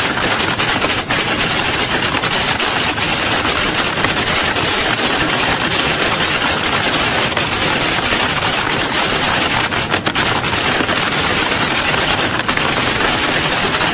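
Many people typing on keyboards at once, as in a typing-test hall: a steady, dense clatter of overlapping key clicks.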